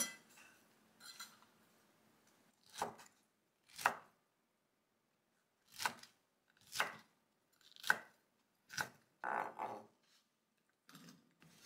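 Kitchen knife chopping soaked bracken fern stems on a wooden cutting board: about six separate sharp cuts, roughly a second apart, followed by a brief rougher scraping sound near the end.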